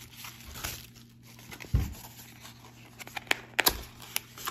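Plastic bubble wrap crinkling and rustling as it is pulled off a small cardboard box, with a dull thump a little under two seconds in. Near the end come several sharp clicks and taps as the box's cardboard flaps are pried open.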